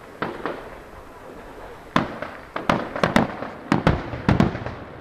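Aerial fireworks shells bursting: two bangs just after the start, then from about two seconds in a quick run of about ten sharp reports that dies down near the end.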